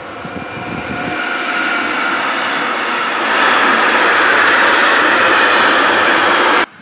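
Electric locomotive and its container freight wagons passing close by at speed, a rushing rail noise that grows louder as the wagons go past. The sound cuts off abruptly near the end.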